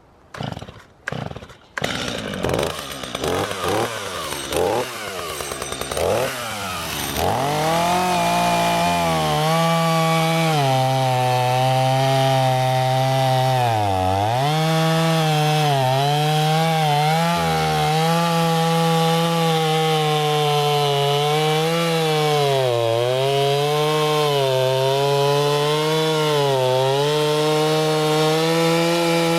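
Two-stroke chainsaw being started with a few short pulls, catching and revved in short blips, then held at high revs as it cuts into a large round hay bale. Its pitch sags now and then under load and recovers.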